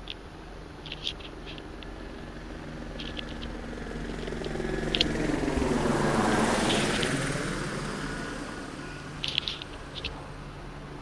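A vehicle passing by: a rushing noise that swells to a peak about six seconds in and then fades away. A faint steady hum and several small clicks sit beneath it.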